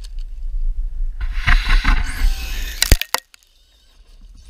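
Traxxas E-Revo electric RC truck on a 3S battery driving close by over loose gravel: a rush of tyre and gravel noise with a rising motor whine, ending in a few sharp knocks about three seconds in. Wind rumbles on the microphone throughout.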